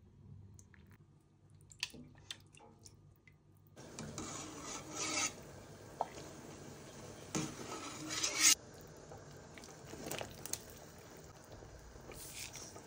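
A few faint clinks of a metal spoon in a ceramic soup bowl, then, from about four seconds in, a metal skimmer scraping and rubbing against a steel stockpot while foam is skimmed off boiling chicken, with a sharp loud scrape about two-thirds through. Quieter rustling and a few clinks of utensils in the pot follow.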